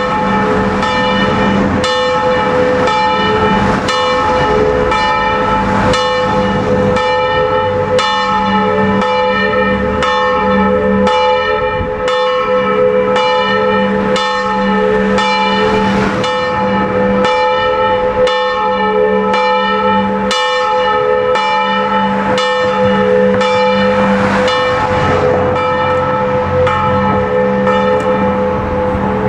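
Church bells of a five-bell concerto tuned in A3, electrically swung and ringing together in a steady run of strokes, more than one a second. The tones overlap and hang on between strokes.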